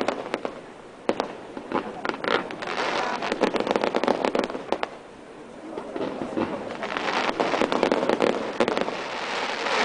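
Fireworks display: rapid crackling and popping of firework bursts, with short lulls about a second in and around the middle.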